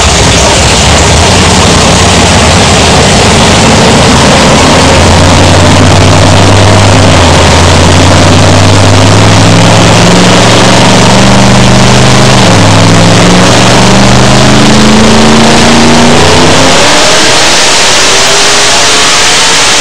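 632 cubic-inch big-block Chevy V8 in an S10 mud truck, very loud, making a pull on a chassis dyno. Engine speed climbs slowly, drops briefly about twelve seconds in, then climbs quickly near the end.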